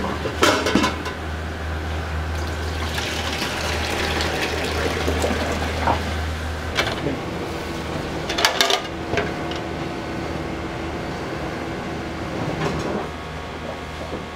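Milky liquid pouring and splashing into stainless steel containers, with sharp clanks of metal pots and pans about half a second in and again about eight and a half seconds in. A steady low hum runs under it and stops about seven seconds in.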